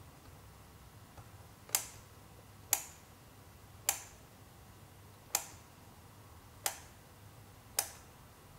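Kiev-19 SLR's shutter-speed dial being turned one step at a time: six sharp detent clicks, about a second apart.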